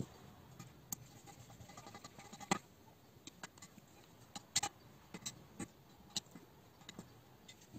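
Small screwdriver turning a screw into a 1/10 RC buggy's metal chassis plate and plastic suspension mount: scattered light clicks and taps of the tool and parts, the loudest knocks about two and a half and four and a half seconds in.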